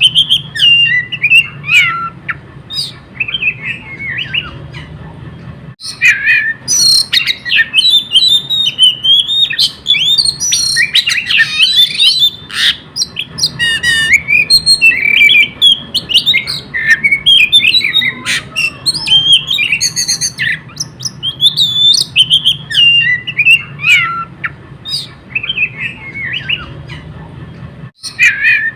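Oriental magpie-robin (kacer) singing non-stop in a fast, unbroken run of varied whistles, chirps and harsh notes, with short breaks about six seconds in and near the end. A faint low hum runs underneath.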